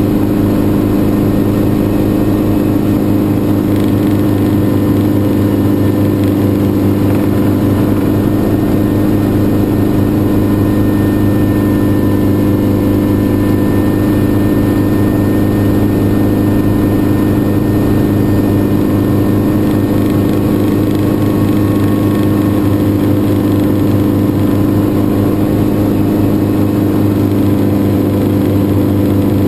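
Schweizer 300 light helicopter's piston engine and rotors running steadily in flight, heard from inside the cabin.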